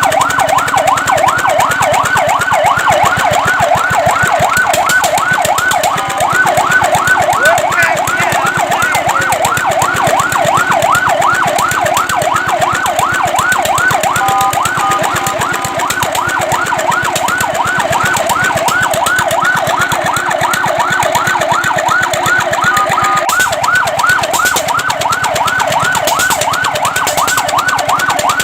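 Fire truck electronic siren on a fast yelp: a rapid rising-and-falling wail repeating about three or four times a second. It twice switches briefly to a steady two-note tone, about halfway through and again near the end.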